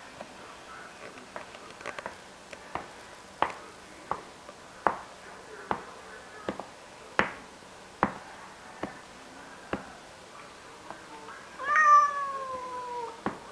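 Domestic cats in a fight: a run of short, sharp sounds about once a second, then one long meow near the end that falls in pitch.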